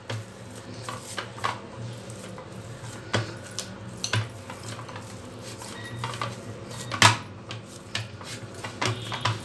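Stiff maida dough being kneaded by hand in a glass bowl, with irregular knocks and clinks against the glass; the loudest knock comes about seven seconds in.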